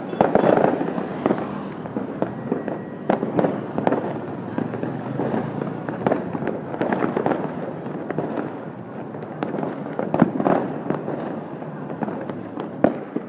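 Fireworks going off in a dense, irregular series of bangs and crackles, with a few louder bangs, the sharpest near the end.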